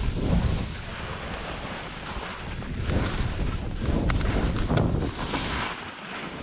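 Skis hissing through deep powder snow in surges as the skier turns, under heavy wind rumble on the GoPro's microphone from the speed of the descent.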